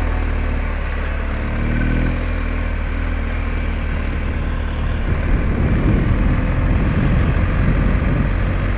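BMW R 1250 GS boxer-twin motorcycle running steadily under way. From about five seconds in, a rougher, fluctuating rumble comes in and the sound gets a little louder.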